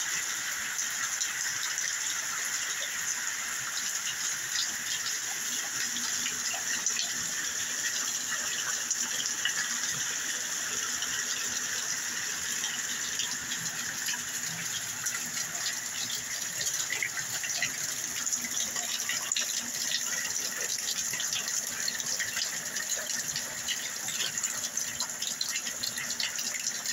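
Steady heavy rain falling, a dense even patter with many small drops and splashes.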